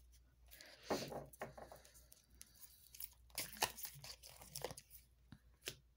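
Tarot deck being handled: soft, irregular rustles and clicks of cards as one is drawn from the deck and laid on the spread.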